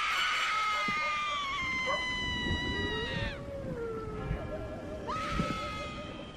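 Two long, high, wailing animal-like cries, each starting abruptly and then sinking slowly in pitch; the first lasts about three seconds and the second starts about five seconds in.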